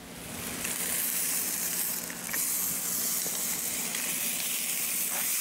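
Steady sizzling hiss of a wood-fire grill, meat searing on the hot iron plate over the fire, fading in over the first second, with a faint low hum beneath.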